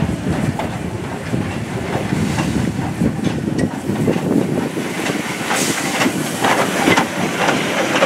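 Small Andrew Barclay 0-4-0 saddle-tank steam locomotive running slowly past, its wheels and motion clanking and clicking. Steam hissing builds over the last few seconds as it draws level.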